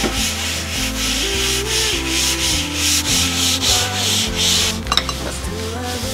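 A cloth wiped briskly back and forth across a smooth desktop, rhythmic rubbing strokes about three a second. The wiping stops about five seconds in with a sharp knock.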